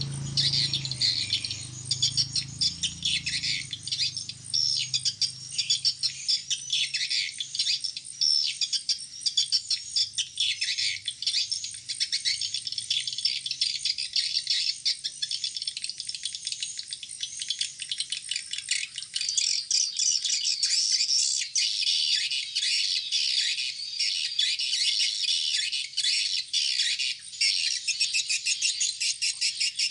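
Swiftlet calls played as a lure: a dense, continuous high-pitched twittering and rapid chattering of edible-nest swiftlets. A faint low hum fades out in the first few seconds.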